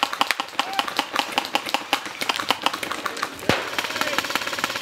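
Several airsoft guns firing in an exchange, a dense, irregular stream of sharp overlapping clicks and snaps, with one louder bang about three and a half seconds in.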